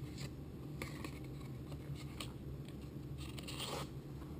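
Faint clicks and a brief rustle of lasagna sheets being picked up and handled, over a low steady hum.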